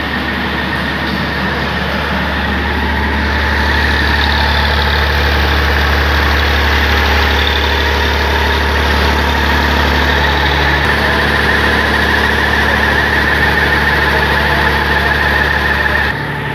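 Tractor engine running steadily, driving the water tanker's centrifugal pump.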